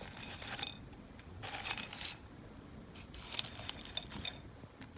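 Faint crinkling and light clicking of takeout food being handled at a table, in three short clusters.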